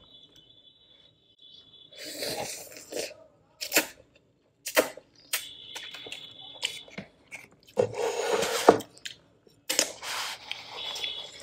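Close-miked eating of instant cup noodles: chewing and wet mouth sounds in irregular bursts with sharp clicks, starting after a quiet first couple of seconds.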